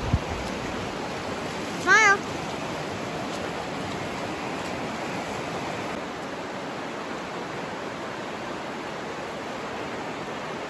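Steady rushing of the Virgin River flowing over rocks, with one short, loud, wavering cry about two seconds in.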